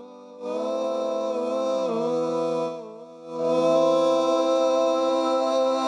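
A sung vocal line from a music track, playing through a vari-mu tube compressor plugin. It holds long notes in two phrases, with a brief break about three seconds in.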